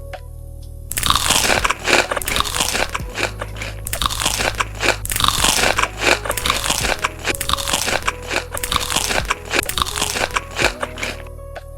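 Loud close-up crunching and chewing of crispy hot wings, with many sharp crackly bites, starting about a second in and stopping near the end.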